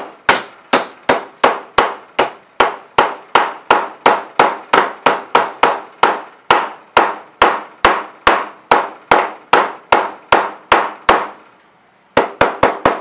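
Orange plastic mallet hammer-forming the edge flange of a 0.025-inch aluminium wing rib over a clamped form block: steady blows about two and a half a second, each with a short metallic ring. After a pause of about a second near the end comes a quicker run of blows.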